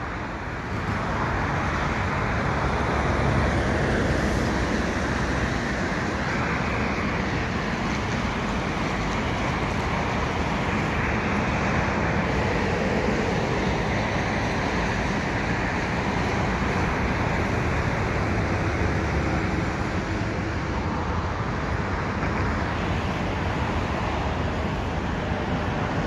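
Steady traffic noise from a busy multi-lane highway, with an even rush of tyres and engines and no single vehicle standing out.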